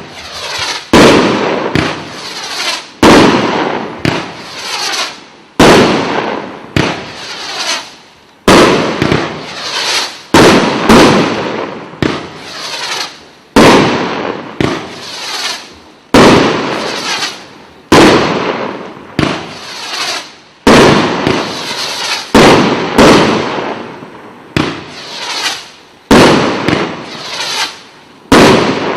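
A 36-shot 30 mm consumer fireworks cake firing shot after shot, about one a second. Each shot is a sharp bang that trails off before the next.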